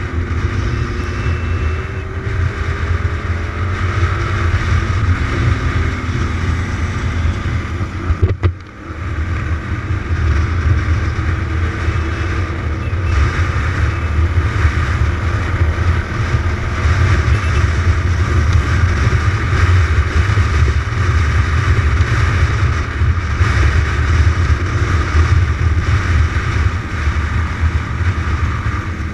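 Motorcycle engine running steadily while riding, heard from a camera mounted on the bike, with wind and road noise over it. The sound briefly dips about a third of the way in.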